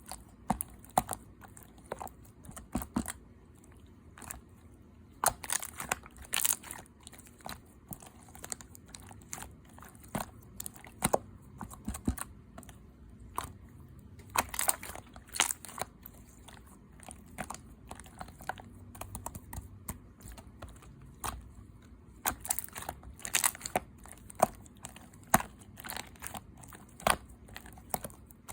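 Clear slime being handled by hand, squished and poked, giving irregular clicks and crackling pops that come in loose clusters.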